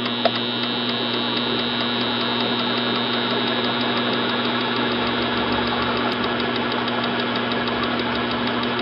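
Treadmill motor spinning a piston-less Tecumseh HH120 engine block and flywheel, a steady electric hum and mechanical whir. There is one sharp snap just after the start, the spark plug firing on the new ignition.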